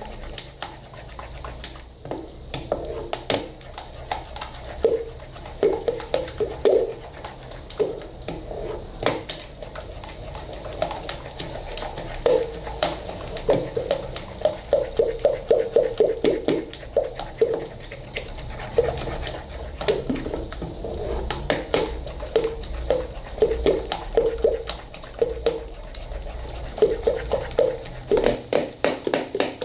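A spoon beating thick doce de leite in a tall metal pot, in a rapid, uneven run of scraping strokes and knocks against the pot. The sweet is being beaten as it cools off the heat so it reaches its setting point.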